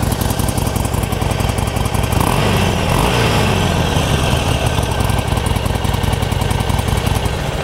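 Harley-Davidson Sportster 48's 1200cc air-cooled V-twin idling steadily through its factory exhaust.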